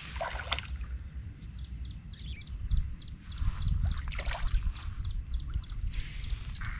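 Wind rumbling on the microphone in an open field, with a rapid series of short high chirps, about four a second, starting about a second and a half in, and a few faint clicks.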